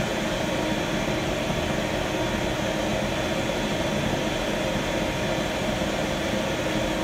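Propane torch firing into a small homemade high-temperature-cement forge, making a steady, unbroken rushing hiss of flame.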